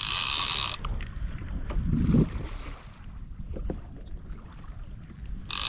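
Two short bursts of two-way radio squelch static, each switching on and off abruptly, one at the start and one near the end, over low water noise around the kayak.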